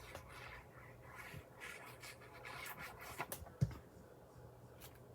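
Paper and card stock rustling and rubbing as a printed image is placed and pressed down by hand, with a single knock on the table about three and a half seconds in.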